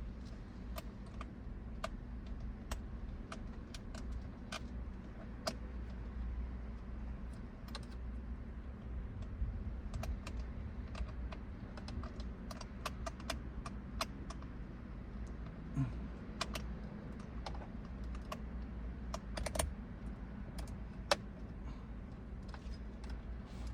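Light, irregular clicks of a hand tool working as the screws at the back of a steering wheel are tightened, over a steady low hum.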